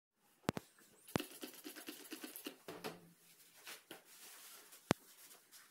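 Handling noise: three sharp clicks, about half a second, just over a second and about five seconds in, with a run of small ticks and rustling in between.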